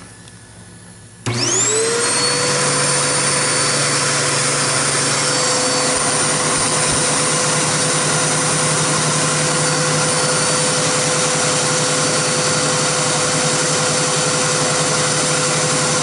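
Aerus Electrolux upright vacuum cleaner switched on about a second in, its motor whining up to speed within a second and then running steadily with a rush of air and a steady high whine.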